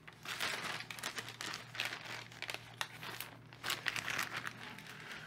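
Clear plastic bags and paper sheets crinkling and rustling in irregular handfuls as small accessories are packed back into them.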